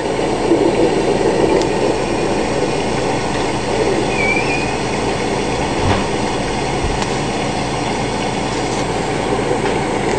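Thunderstorm wind and rain: a loud, steady rushing noise with no break.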